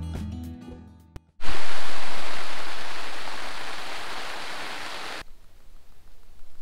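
Background music fades out, then heavy rain falls loudly on the nylon tent fly, heard from inside the tent, as a steady dense hiss for almost four seconds. It cuts off abruptly to a much quieter hiss with faint ticks.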